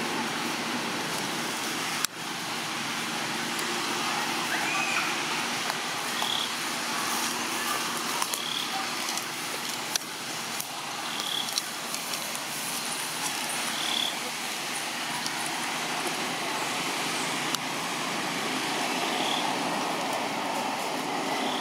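Steady rushing outdoor background noise, with a few faint, short, high-pitched chirps every couple of seconds and a sharp click about two seconds in.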